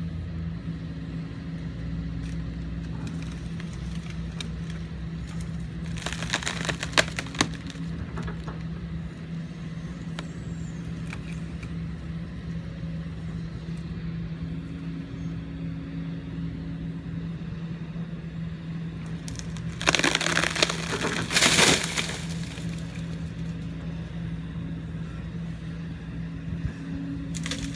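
Kobelco SK140-8 excavator's diesel engine running steadily, with two loud spells of wood cracking and snapping as trees are broken down: a short one about six seconds in and a longer one about twenty seconds in.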